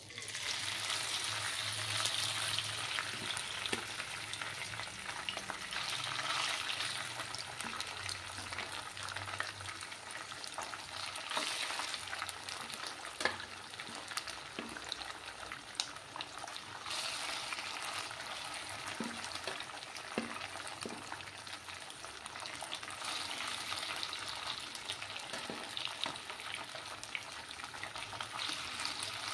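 Small tangra fish dropped into hot mustard oil in a kadai, starting at once to fry with a loud, steady sizzle. A metal spoon now and then taps and scrapes against the pan as the fish are spread out.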